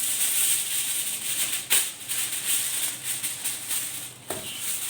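Aluminium foil crinkling and rustling as it is pulled over and pressed around a baking tray, with a sharp crackle about a second and a half in and another near the end.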